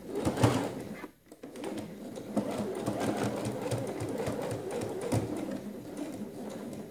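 Electric sewing machine stitching a seam through shirt fabric. It runs, pauses briefly about a second in, then runs on steadily.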